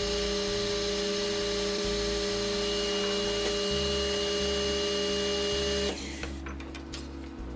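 OCA vacuum laminating machine running its vacuum pump with a steady hum while a phone screen is laminated under vacuum. The hum cuts off abruptly about six seconds in, followed by a few faint clicks.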